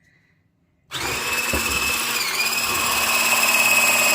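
Electric mixer switched on about a second in and running loud and steady as it mixes flour into pancake batter, its whine dipping briefly in pitch about two seconds in.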